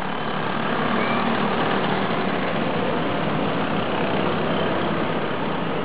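Small two-stroke engines of VéloSoleX mopeds running, a steady unbroken drone.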